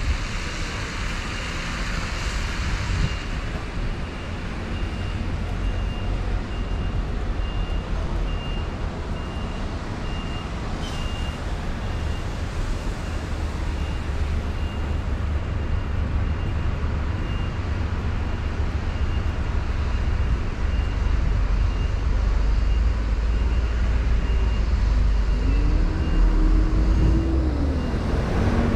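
Road traffic around a bus station: a steady low rumble of bus engines and tyre noise on wet road, with a faint short high beep repeating about every second. Near the end an engine revs up, holds and drops back.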